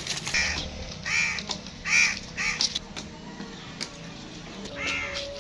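Harsh bird calls, four in quick succession and one more near the end.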